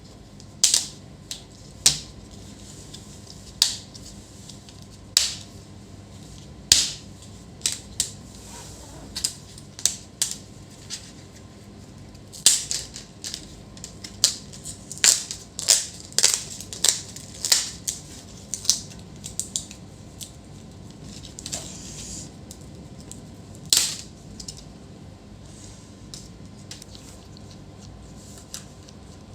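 Irregular sharp clicks and snaps from the plastic parts of a Lenovo IdeaPad 130 laptop being handled during disassembly. They come in a quick run in the middle and stop after one last loud snap about three-quarters of the way through.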